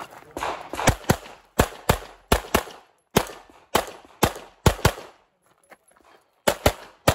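CZ Shadow 2 9 mm pistol firing about fifteen shots, mostly in quick double taps about a fifth of a second apart, with a pause of about a second near the end before two more pairs.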